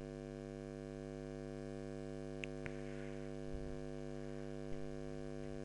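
Steady electrical mains hum on the recording, with a few faint clicks in the middle.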